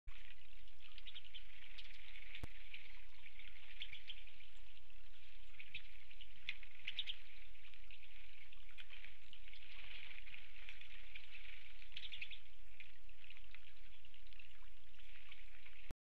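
A flock of Pine Siskins twittering and chattering at the feeders, a constant overlapping patter of high, quick calls. A single sharp click about two seconds in.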